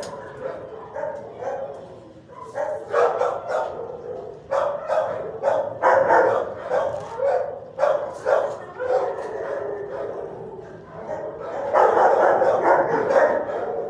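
Dogs barking repeatedly in kennels, in bursts of short barks with a dense stretch of overlapping barking near the end.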